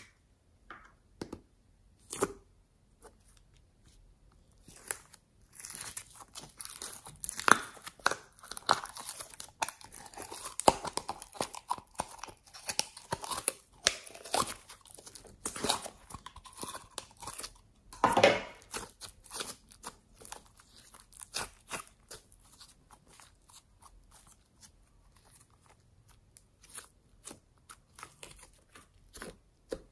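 Pink fluffy slime being pulled out of its plastic tub and stretched by hand, giving sticky crackling and tearing sounds. A few scattered clicks at first, then dense crackling from about five seconds in that thins out toward the end.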